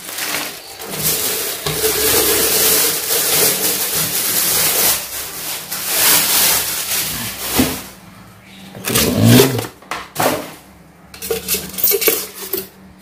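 Plastic wrapping crinkling and rustling as it is pulled off a chopper's clear plastic bowl, followed in the last few seconds by a few light knocks and rattles of plastic parts being handled.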